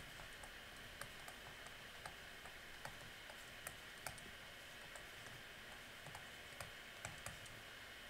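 Faint, irregular clicks and taps of a stylus on a tablet surface as numbers are handwritten, over a steady low hiss.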